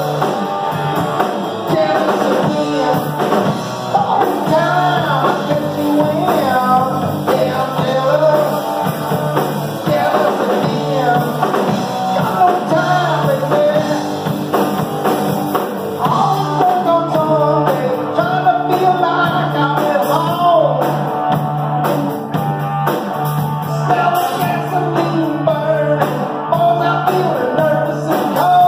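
A small rock band playing live, with electric guitars and a drum kit under a man singing lead vocals.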